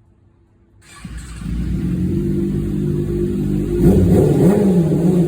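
Kawasaki Ninja ZX-6R inline-four with an M4 aftermarket exhaust, coming in suddenly about a second in and running steadily. From a little past halfway it is revved in short throttle blips, its pitch rising and falling.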